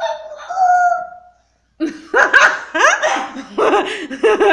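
A small child's voice holds one long drawn-out note, an attempt at a rooster's crow. From about two seconds in there is loud laughter with many quick rising and falling squeals.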